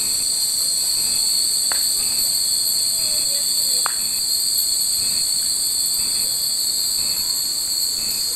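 Glass fūrin wind chimes tinkling, with a couple of sharp tings, over a loud, steady, high-pitched drone of summer cicadas.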